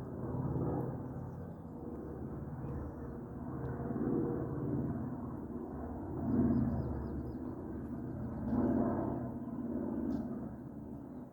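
A floatplane's propeller engine droning low over a lake, its sound swelling and fading every couple of seconds.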